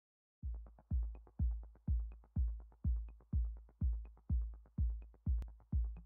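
Electronic music with a steady drum-machine kick, about two beats a second, starting shortly after the beginning.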